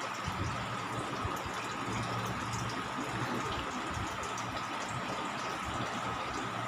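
Steady bubbling and trickling of aquarium water, as from a tank's filter or aeration, with a faint steady hum.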